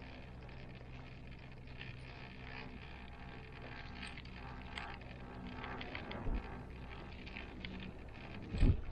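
Gondola cable car cabin riding along its haul rope: a steady low hum with light rattling and clicks, and two low thumps, the louder one near the end.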